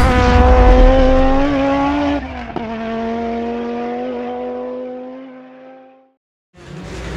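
A race car engine held at high, steady revs, its pitch stepping down a little about two seconds in, then fading away. After a short silence, another engine sound starts near the end.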